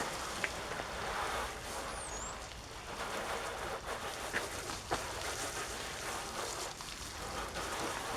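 Garden hose spraying water over a riding mower to rinse off degreaser: an uneven hiss that swells and fades as the spray moves across the surfaces, with a few sharp clicks.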